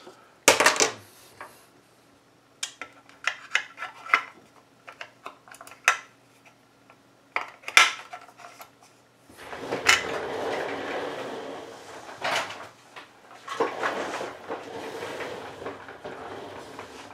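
Hard plastic parts of a radio earmuff set's battery compartment and earcup being handled: a run of sharp clicks, taps and clatter, then longer stretches of rubbing and scraping as the parts are worked together.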